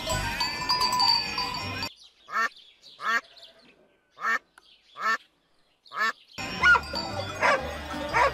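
A duck quacking five times, short separate calls with silence between them, in the middle of the stretch. Before and after, background music plays with sheep and goats bleating.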